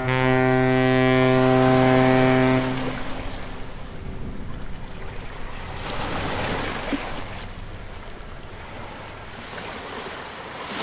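A ship's horn sounds one long steady blast of about two and a half seconds, then waves break on the shore with wind.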